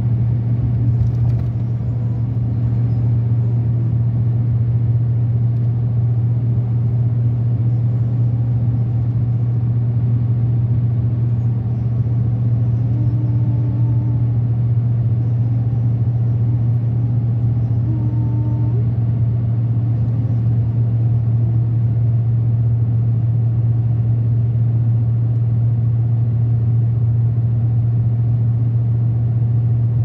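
Steady low rumble of engine and tyre noise heard inside a car cruising at highway speed.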